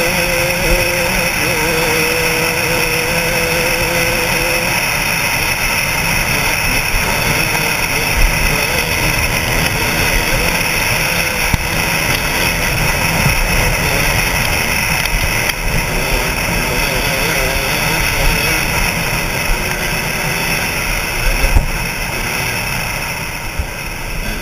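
KTM 200 SX two-stroke dirt bike engine running hard at speed, heard through wind rumble on a helmet-mounted camera. The engine note holds steady for the first few seconds, then turns rough and uneven over rough ground.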